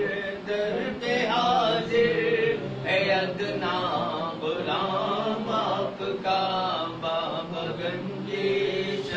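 Male voices chanting a naat, the unaccompanied Urdu devotional recitation, in a continuous sung line.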